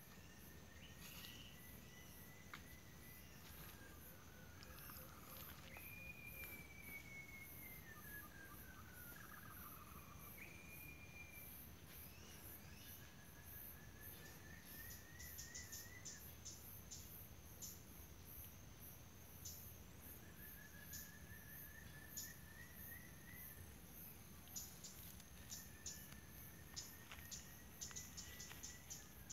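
Faint forest chorus of insects and birds. Insects keep up a high, fast-pulsing shrill over a steady high whine, with quick clusters of clicks in the second half. Birds call over it with trilled notes and a few falling whistles.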